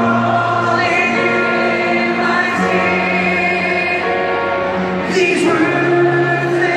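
Slow background music with sung voices, made of long held chords that change every second or two.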